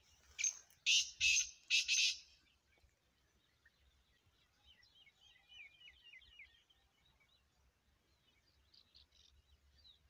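Black francolin calling: a loud phrase of four harsh notes in the first two seconds, followed later by fainter chirping.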